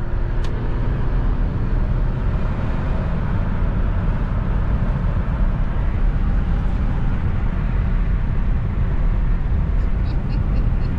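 Steady rumble of a car on the road heard from inside the cabin, with tyre and wind noise.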